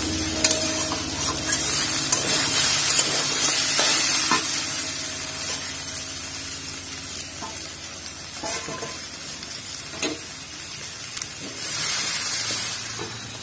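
Jackfruit and potato pieces sizzling in hot mustard oil in a kadhai, with a spatula clicking and scraping against the pan as they are stirred. The sizzle grows quieter through the middle, with a short swell near the end.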